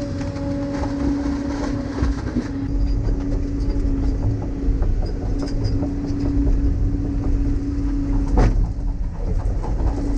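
Large excavator's diesel engine and hydraulics running under digging load, with a steady whine over the low engine rumble and small clanks. A single sharp knock of the bucket or boom comes a little past eight seconds in.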